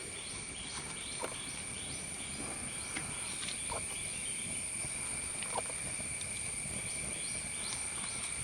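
Insect chorus: a steady high-pitched drone with rhythmic chirping over it, about two to three chirps a second, dropping away in the middle and coming back near the end. A few faint ticks sound over it.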